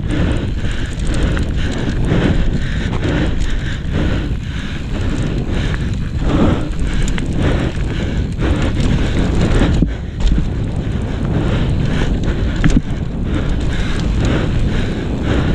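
Wind buffeting an action camera's microphone as a Cube Stereo 150 full-suspension mountain bike descends a dry dirt singletrack fast. The tyres roll over loose dirt and stones, with frequent knocks and rattles from the bike over the rough ground.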